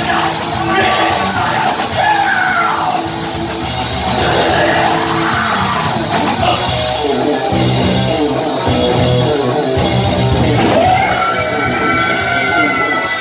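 Heavy metal band playing live: distorted electric guitars, bass and drums under shouted, yelled vocals. Near the end a long high note is held for about two seconds.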